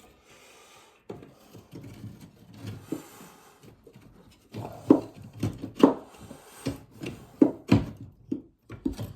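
Wooden lath strips rubbing and scraping as they are handled and fitted into a ceiling, then a run of sharp wooden knocks over the second half as the lath bumps into place.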